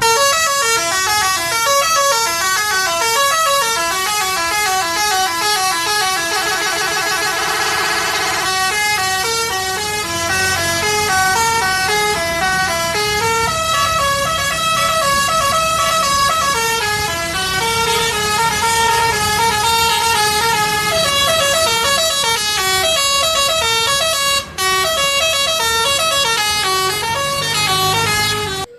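Multi-tone musical horn playing a fast melody of stepping notes that jump up and down, with a brief break near the end. It starts and stops abruptly.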